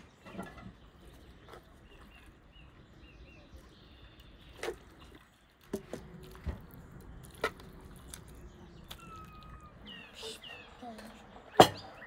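Dishes and serving utensils knocking and clinking as food is served at a table: a few scattered single knocks, the loudest near the end, over low voices.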